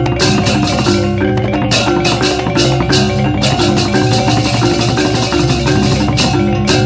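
Baleganjur processional gamelan playing: ringing gongs and metallophones with a busy run of sharp, repeated clashes over them.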